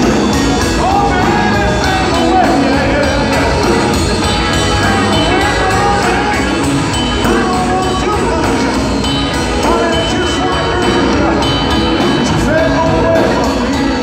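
Live rock band playing a song: drum kit with a steady beat on the cymbals, electric guitar, bass and keyboard.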